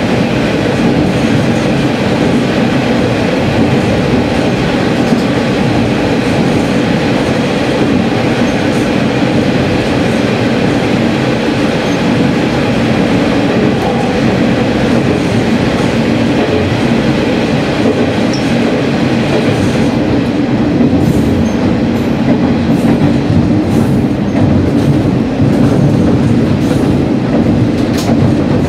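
Diesel railcar running steadily through a tunnel: a loud, dense, continuous rumble of wheels, rails and engine echoing off the tunnel walls, heard from the cab. Near the end the train comes out into the open and the high hiss thins.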